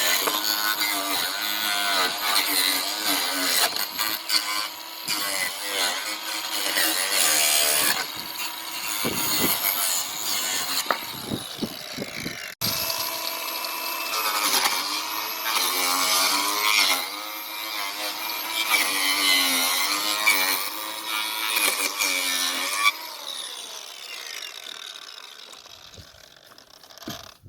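Angle grinder fitted with a chainsaw-style chain disc cutting wood, the motor's whine dipping in pitch and recovering as the teeth bite and release. The sound breaks off abruptly about twelve seconds in, resumes, and fades away near the end.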